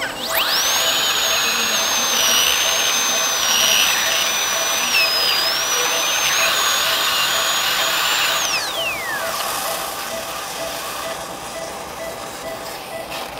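High-speed air-turbine dental handpiece drilling a child's tooth. It spins up to a high steady whine, dips briefly in pitch midway, then winds down with a falling whine and stops about nine seconds in.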